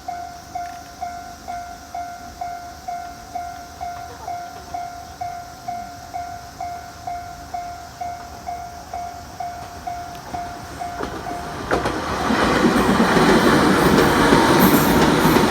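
Level-crossing warning bell dinging about twice a second in a steady beat. About twelve seconds in a train runs through the crossing, and its loud rolling rush covers the bell.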